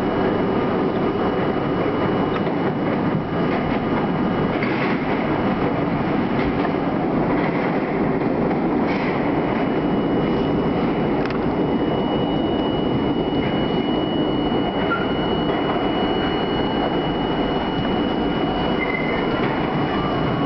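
R32 subway car running through a tunnel, heard from inside the car: a steady rumble of wheels on rail with a few sharp clicks over rail joints. A thin, high, steady whine sets in about halfway.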